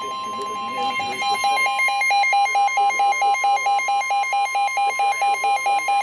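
NOAA weather radio sounding an alert: the steady 1050 Hz Warning Alarm Tone that comes before a National Weather Service warning message, joined about a second in by the receiver's own loud beeping alarm at about three or four beeps a second.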